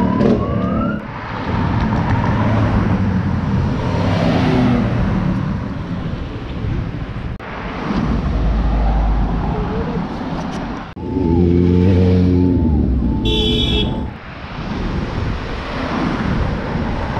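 Road traffic: cars and motorbikes running and passing close by, broken by several abrupt cuts. About eleven seconds in, a louder engine passes with a short run of four repeated pitched tones.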